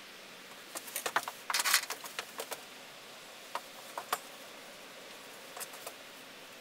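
Short clicks and taps of a paintbrush working paint onto a painted board, with a brief burst of rustling about a second and a half in, over a faint steady hiss.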